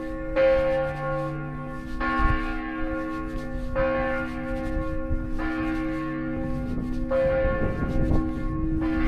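Church bell tolling, struck about every one and three-quarter seconds: six strokes, each ringing on into the next.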